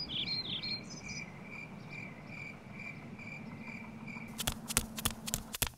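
Cartoon park-ambience soundtrack: a few warbling bird chirps in the first second, then an even, high chirp repeating about twice a second over a low hiss. Near the end comes a quick run of sharp clicks.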